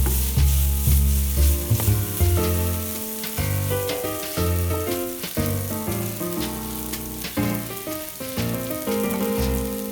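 Food sizzling as it fries in a hot pan, a steady crackling hiss, with instrumental background music and a moving bass line playing over it.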